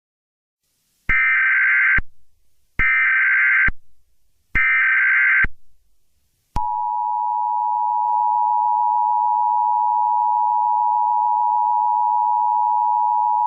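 Emergency Alert System broadcast tones: three short, harsh SAME header data bursts about a second apart, then a long, steady two-tone attention signal that starts about halfway through. This is the sequence that opens an EAS warning.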